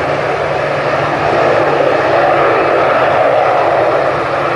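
Aircraft engines running loudly and steadily, a dense noise with a low steady hum underneath, swelling slightly about a second and a half in.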